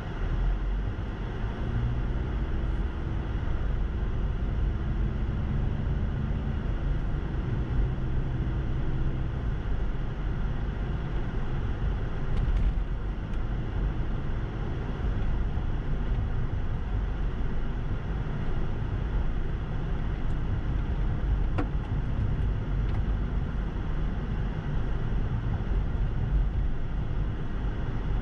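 Car pulling away from a stop and speeding up, heard from inside the cabin: a low engine hum over roughly the first nine seconds, then a steady low rumble of tyres on the snow-covered road while cruising.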